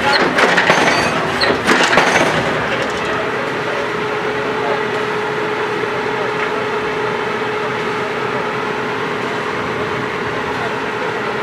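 Truck-mounted borewell drilling rig running with a steady mechanical din and a constant hum. There is some metallic clanking in the first couple of seconds.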